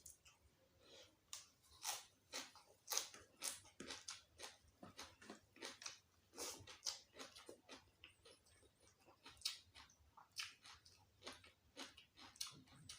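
A person chewing and biting food close to the microphone: irregular eating sounds, several a second.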